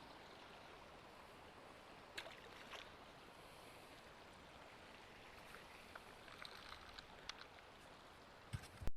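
Faint, steady creek water, with a few light ticks and one louder knock near the end.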